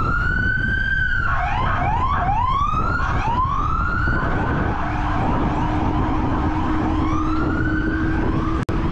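Police car siren wailing: a held high note drops into a few quick rising whoops, then a long slow rise and fall. Steady wind rush on the microphone from the moving e-bike runs underneath.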